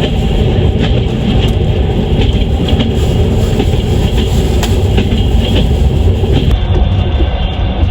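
Passenger train running on rails: a steady low rumble with the wheels clicking sharply over the rail joints about once a second.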